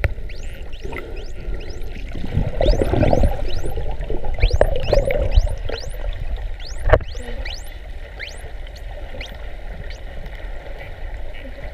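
Bottlenose dolphins whistling underwater: many short whistles, each falling quickly in pitch, several a second, over a steady low rumble of water noise.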